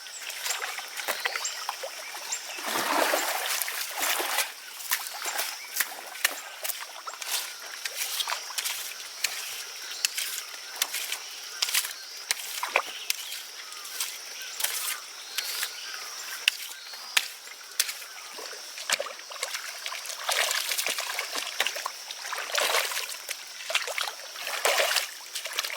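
Water splashing and sloshing in a shallow muddy pond, with frequent small knocks and clicks over a steady high whine. Louder splashes come about three seconds in and again several times near the end.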